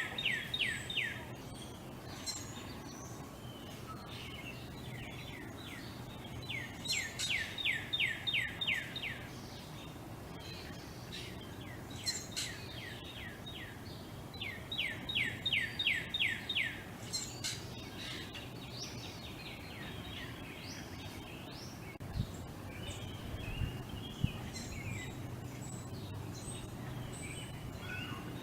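A songbird repeats a song of about ten quick down-slurred whistled notes, three times, several seconds apart. Other birds chirp in between, over a steady low background hum.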